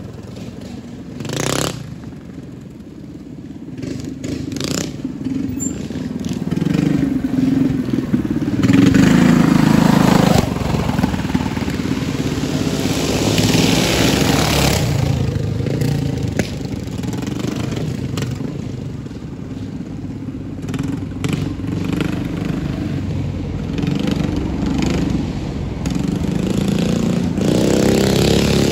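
Several gasoline mini bike engines revving and running hard as the bikes launch and race down a dirt drag strip. The engines swell from moderate to loudest about nine seconds in and keep running strongly after that.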